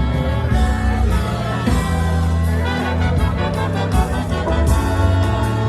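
A live band playing during a sound check: held melodic lines over a steady bass and drums, at full level without a break.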